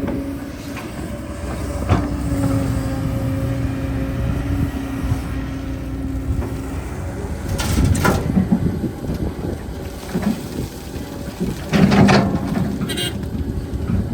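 Heavy earthmoving machinery running with a steady diesel hum, broken by loud knocks and clatter about eight seconds in and again near twelve seconds.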